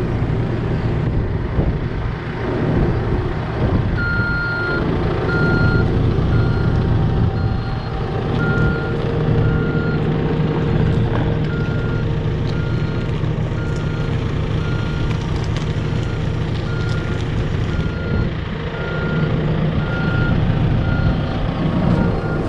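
Heavy machine's engine running steadily, with its reversing alarm starting about four seconds in and beeping about once a second as the machine backs up.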